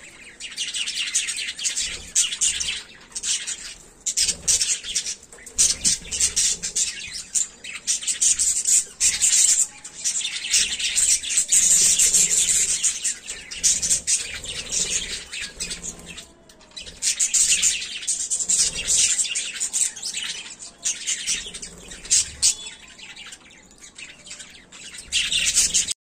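Budgerigars chattering and chirping in a busy stream of rapid high notes, with a few brief pauses.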